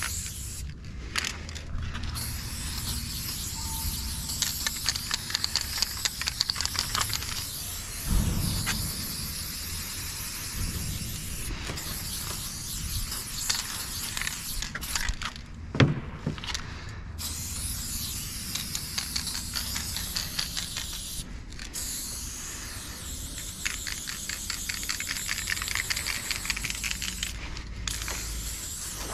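Aerosol spray-paint can hissing in long bursts with brief breaks between them as paint is laid on. One sharp knock about halfway through.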